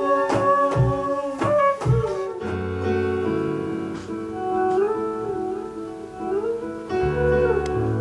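Music: a beat with regular drum hits for the first couple of seconds, then held chords with a sliding lead melody over a steady bass.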